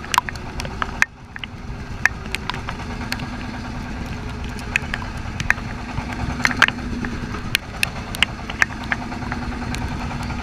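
A fishing boat's engine running steadily, with scattered sharp knocks and clicks over it.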